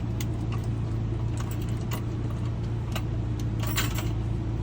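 Light clicks and jingles of car keys being handled over a steady low hum, as a key is set up to be decoded.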